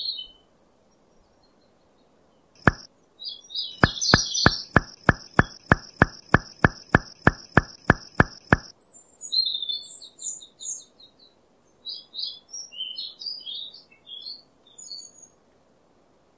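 Small birds chirping in short high bursts. A sharp click sounds about 3 s in, followed by a run of about fifteen evenly spaced sharp clicks, about three a second, under a steady high tone; these stop about 9 s in.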